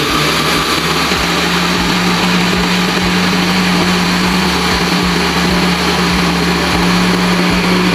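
Electric blender running steadily, its motor puréeing fried peanuts, garlic, chillies and pepper with water and seasonings into satay peanut sauce; the motor stops abruptly at the end.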